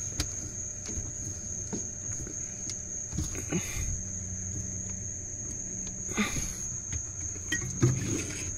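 A steady high cricket trill, with light rubbing and a few soft knocks as a spin-on fuel filter is threaded on by hand.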